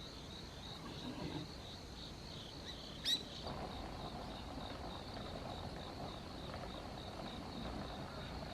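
Insects, likely crickets, trilling steadily and high-pitched in a continuous outdoor chorus. A single short, sharp bird chirp cuts in about three seconds in.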